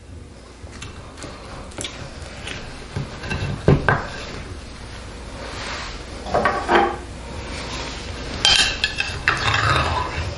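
Metal knife and pie server clinking and scraping against a glass pie dish as a baked pie is cut and a slice lifted out. There are a few sharp knocks, the loudest a little over a third of the way in.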